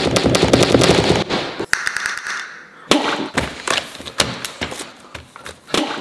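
A rapid run of sharp cracks and bangs, dense and clattering for the first second and a half, then sparser single cracks for the rest.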